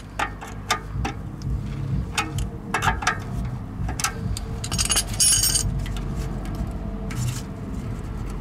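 Flat screwdriver tightening a stainless worm-drive hose clamp around an exhaust repair bandage: irregular metal clicks and scrapes, with a brighter metallic clink about five seconds in.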